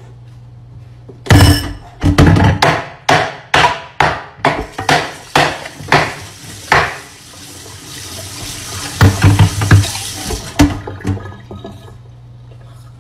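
Water running from a kitchen tap into a stainless steel sink while things are knocked about in it. A run of about a dozen sharp clatters comes faster and faster, then a second quick cluster follows a few seconds later.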